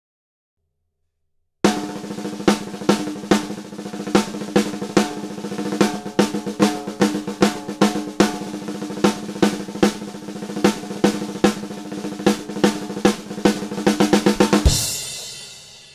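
Gretsch Black Copper snare drum played in a fast, dense pattern of strokes with regularly accented hits and a ringing shell tone, starting after a short silence. Near the end the strokes speed up into a build and finish on a single crash with a kick drum hit, leaving a bright ringing wash that dies away.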